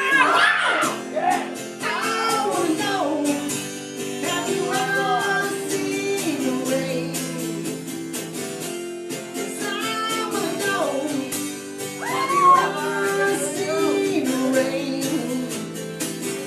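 Live music: guitar accompaniment with a pitched melody line that bends and wavers over it.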